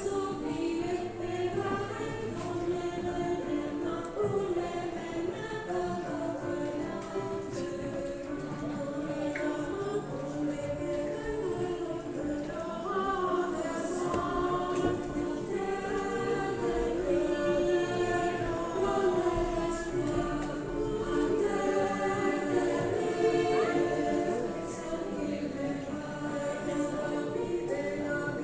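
A choir singing, several voice parts holding notes together in harmony.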